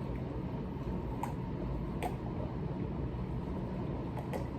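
Steady low room hum, like a fan or air unit, with a few faint clicks.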